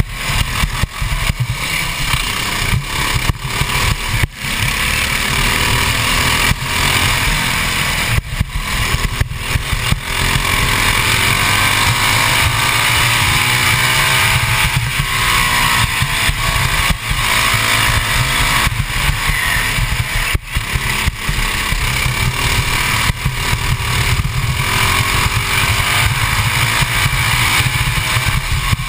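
Modified 196cc Honda GX200 single-cylinder four-stroke kart engine at racing speed, its pitch climbing as it revs up on the straights and falling away into the corners several times. Heavy wind buffeting on the onboard microphone.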